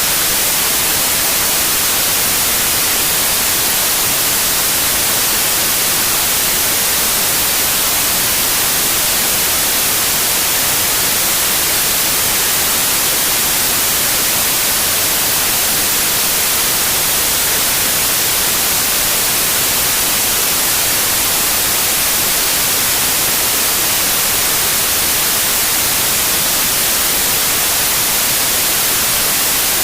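Steady white noise: an even, unchanging hiss, brighter in the high end, with no gusts, strokes or tones.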